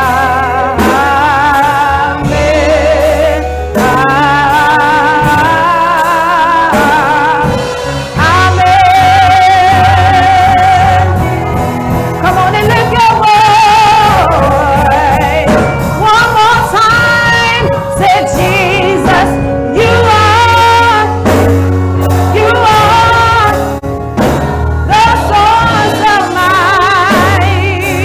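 A woman singing a gospel song into a handheld microphone, with wavering, vibrato-laden held notes over instrumental accompaniment with a steady bass.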